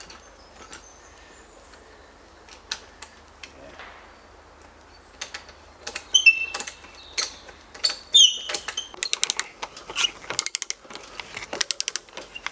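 A few light knocks over a quiet background, then, from about halfway, a busier run of clicks, knocks and short squeaks. From about nine seconds this turns into fast, regular clicking, typical of a ratcheting hand brace turning an auger bit into a wooden post.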